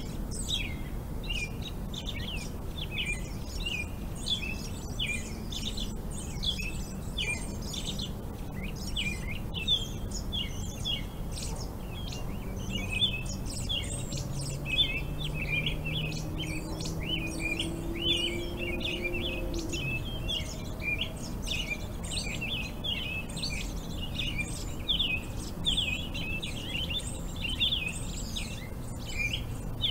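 Many birds chirping at once in a dense, continuous chorus of short high calls. Under them runs a low rumble, with a faint hum that rises slightly in pitch over several seconds around the middle.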